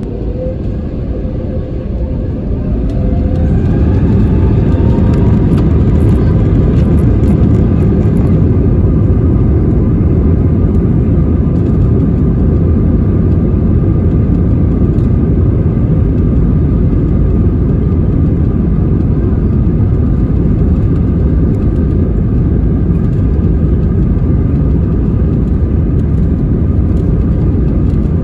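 Airbus A320neo jet engines spooling up to takeoff thrust, heard from inside the cabin: a whine rises in pitch over the first few seconds as the sound grows louder. It then holds steady and loud, with a heavy low rumble, as the aircraft accelerates down the runway.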